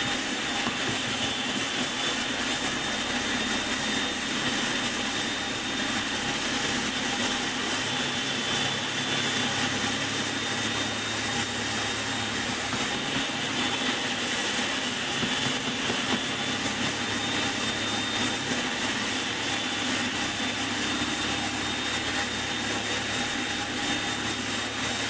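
Food processor running steadily on its chop setting, its blade chopping cauliflower florets into coarse crumbs, with a steady high whine over the motor's noise.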